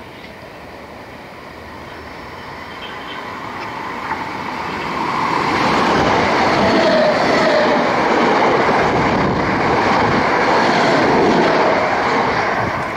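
South West Trains Class 455 third-rail electric multiple unit approaching and passing through the station. Its wheel and running noise grows over the first five or six seconds, stays loud while the carriages go by, and starts to fall away near the end.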